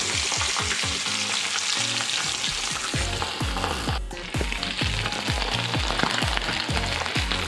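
A flour-dredged fish fillet frying in a skillet of hot oil: a dense, steady sizzle and crackle of bubbling oil. Underneath runs a bass-heavy music beat of regular low pulses.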